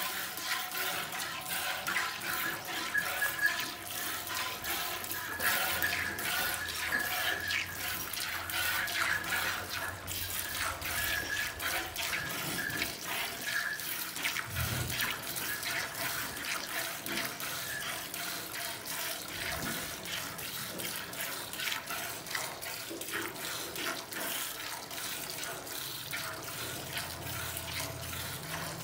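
Milk squirting by hand from a cow's teats into milk already in a steel pail: a steady, quick run of short splashy squirts as the hands pull in turn.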